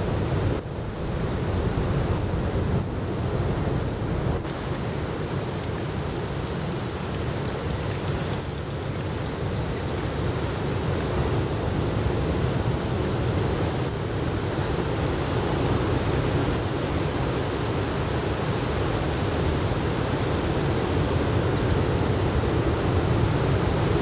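Steady wash of breaking surf from a typhoon swell, with wind on the microphone, getting a little louder toward the end. A brief high chirp about halfway through.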